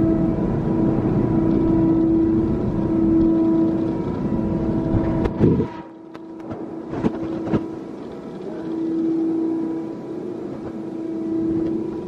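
Steady machine hum in an industrial plant, swelling and fading. A low rumble under it cuts off suddenly about six seconds in, and a few sharp clicks follow.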